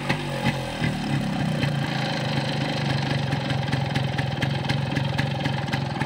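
Yamaha RX135 two-stroke single-cylinder motorcycle engine running through its original catalytic silencer, settling into a steady idle after the first second or so.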